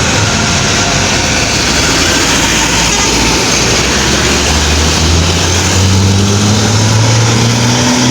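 Loud road traffic: a heavy vehicle's engine running as it passes close by over steady tyre and road noise, its low engine note growing stronger and rising slightly about five seconds in.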